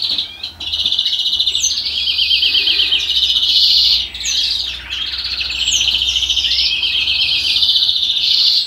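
Caged European greenfinch singing a long, continuous song of fast trills and rolling repeated notes, broken by short high down-slurred calls, with only brief pauses about half a second in and about four seconds in.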